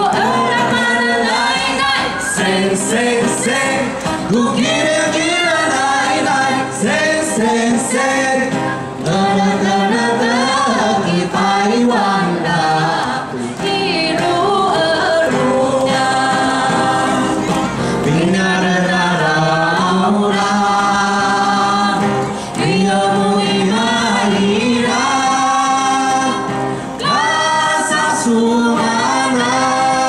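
A mixed group of men and women singing together in harmony through stage microphones, with acoustic guitar accompaniment, amplified over a concert PA.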